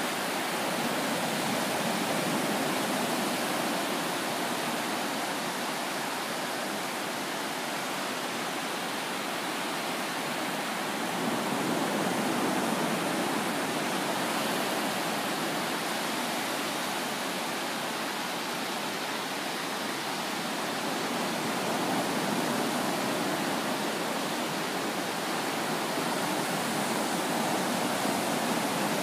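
Ocean surf breaking and washing up a sandy beach: a steady rush that swells and eases gently a few times.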